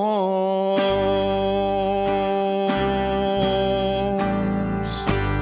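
Closing bars of a country song: a strummed acoustic guitar holding the final chords with a bass line underneath, just after the last sung note ends.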